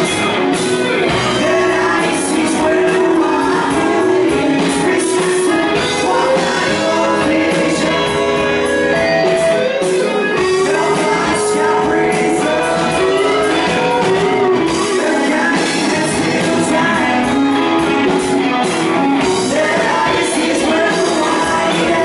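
Live rock band playing loud and steady: electric guitars with a male singer's vocals.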